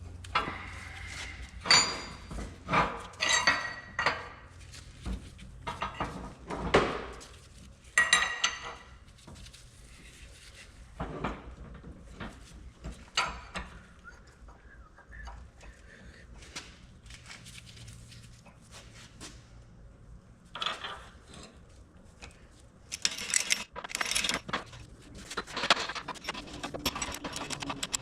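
Steel parts and hand tools clinking and clanking as they are handled. There are several ringing metal clinks in the first ten seconds and a quick run of them near the end.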